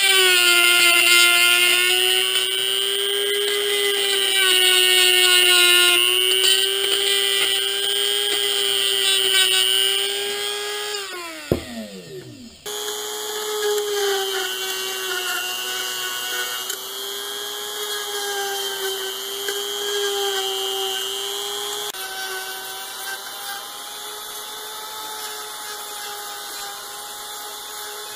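Handheld variable-speed rotary tool grinding out the fiberglass inside a rifle stock's inletting, a steady high whine. About eleven seconds in it is switched off and spins down in a falling whine, then it runs again with the same steady whine.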